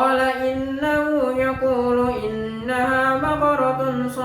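A man's voice reciting the Quran in a melodic, chanted style, holding long drawn-out notes that step up and down in pitch.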